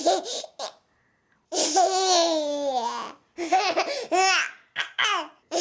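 A 9-month-old baby laughing in several bursts of giggles, the longest drawn out and falling in pitch about one and a half seconds in, in reply to a game of peekaboo.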